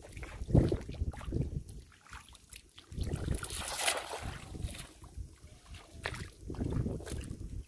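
A weighted cast net landing flat on a shallow pool, its ring of sinkers hitting the water in a spreading splash about three seconds in that lasts around a second. Low rumbling thumps come and go around it, the loudest one under a second in.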